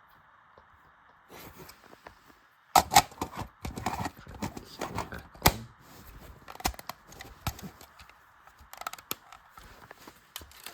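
Irregular plastic clicks and knocks as an optical smoke detector is handled and fitted onto its mounting base. They start about three seconds in, and a few are sharp and loud.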